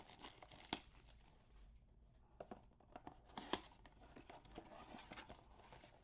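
A cardboard blaster box of baseball cards being torn open and its wrapped card packs pulled out: faint crinkling and tearing, broken by a few sharp clicks.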